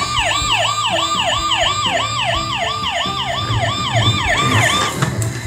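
Pororo toy ambulance's electronic siren, set off by pressing the red light button on its roof: a quick falling wail repeating about three times a second, cutting off near the end.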